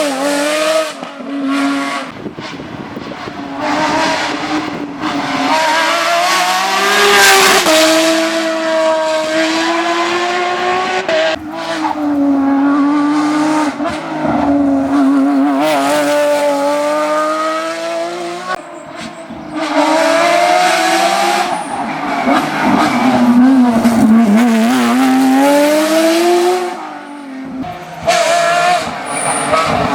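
Porsche 911 GT3 rally car's flat-six engine at full throttle, its pitch climbing hard through the revs and dropping at each gear change or lift, over several separate passes.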